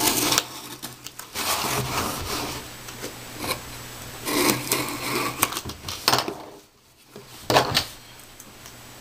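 A pen tip scraping and jabbing through packing tape on a small cardboard box, with the cardboard rubbing and the tape tearing in several rough bursts. It goes briefly quiet near the end, then there is one sharp scrape.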